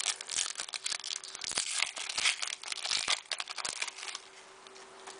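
Foil trading-card pack wrapper crinkling and tearing, with the cards being handled, in a dense run of crackles that dies down after about four seconds.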